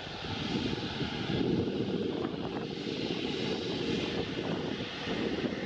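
Airbus A340-600's four Rolls-Royce Trent 500 turbofan engines running at taxi power as the airliner turns at the runway end: a steady jet rumble with a hiss over it.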